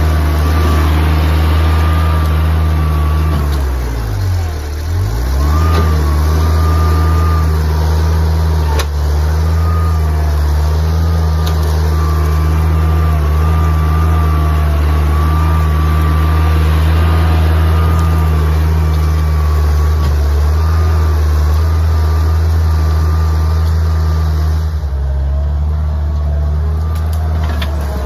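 Bobcat 743 skid steer engine running steadily with a high wavering whine over it. About four seconds in the engine's pitch dips briefly and recovers.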